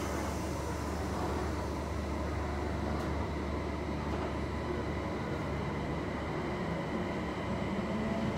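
Inside an electric train pulling away from a station: a steady low hum and rumble, with the motor whine starting to rise in pitch near the end as the train gathers speed.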